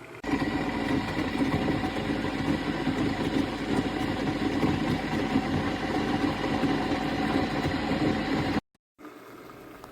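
Keurig K-Café single-serve coffee maker brewing, its water pump running with a steady hum. The hum starts abruptly and cuts off sharply near the end.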